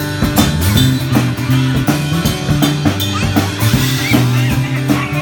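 Instrumental break in an upbeat pop-rock song: drum kit with a steady beat, bass and guitar, no singing.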